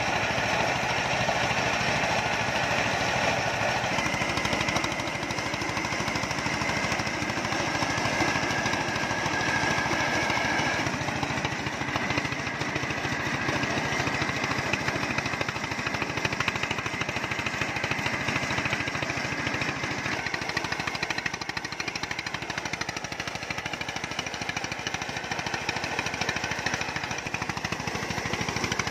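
Vehicle-mounted mobile corn sheller (corn mill) running under load as corn is fed in: a loud, steady, dense mechanical rattle and clatter over the running engine.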